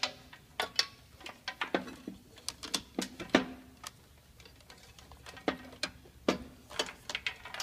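Irregular sharp clicks and taps as a charging cable and its plug are handled and worked free inside a charging table, a few knocks ringing briefly.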